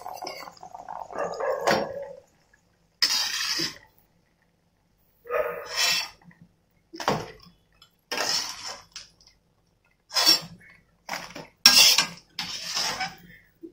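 A metal slotted spoon lifting freshly fried golgappe (puris) out of hot oil in a wok and tipping them onto tissue paper: about nine short noisy bursts of scraping, rustling and dripping oil, with silent gaps between.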